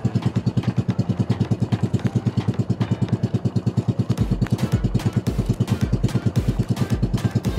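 Boat engine running at a steady speed with a fast, even chugging. From about four seconds in, music with a steady bass beat joins it.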